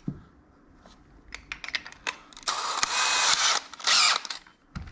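DeWalt cordless drill run in the air, not cutting: a few light clicks, then the motor spins in a run of about a second starting around 2.5 s in and a shorter burst near 4 s in.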